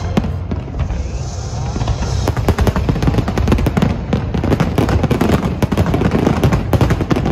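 Aerial fireworks bursting, sparse at first, then a dense rapid barrage of bangs and crackles from about two seconds in.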